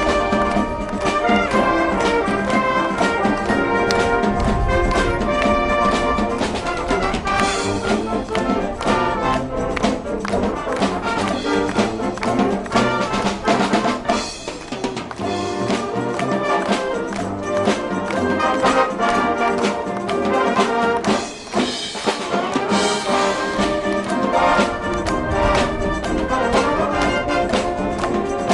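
High school marching wind band playing live, with trumpets and trombones leading over a steady drumbeat; the music thins briefly twice, about 14 and 21 seconds in.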